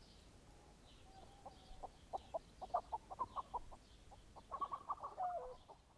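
Chickens clucking: a run of short clucks that starts about a second and a half in, comes thick and fast in two bursts, and ends with a longer call that drops in pitch.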